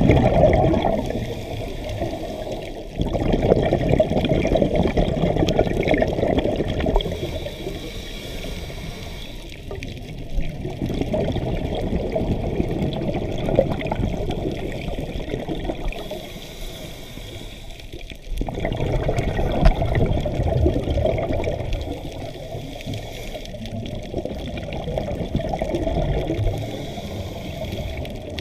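Scuba diver's exhaled bubbles rushing and gurgling out of the regulator underwater, in long surges with quieter gaps between breaths; two of the loudest surges start abruptly, about three seconds in and again about eighteen seconds in.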